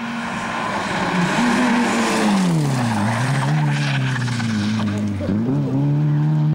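Rally car engine at high revs as the car comes close and passes by, the pitch dropping as it goes past, then revving up again with a brief dip as it pulls away. The sound cuts off suddenly at the end.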